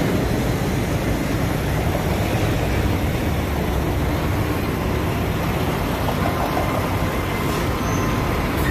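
Busy street traffic with a steady low diesel rumble from a roll-off container truck idling close by, while a TTC Bombardier streetcar moves through the intersection behind it.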